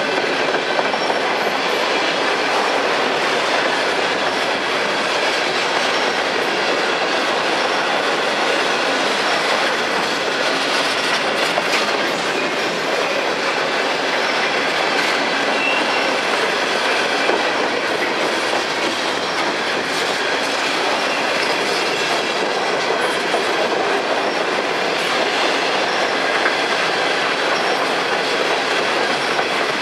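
Freight train cars rolling steadily past on the rails, with faint thin squeals from the wheels.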